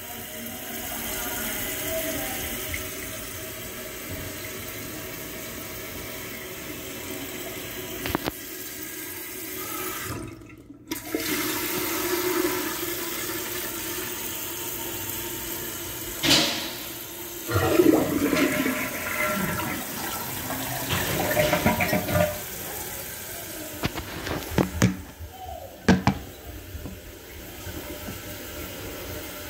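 Water rushing and churning in a 2012 Jacuzzi Perfecta toilet's tank as it flushes and refills, with a short break about ten seconds in. Several sharp knocks and clunks come in the second half.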